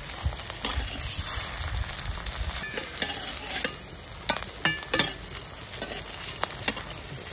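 Soya-chunk muitha dumplings shallow-frying in hot oil in a metal kadai, a steady sizzle. A flat steel spatula scrapes and clicks against the pan several times about halfway through and again near the end as the dumplings are turned.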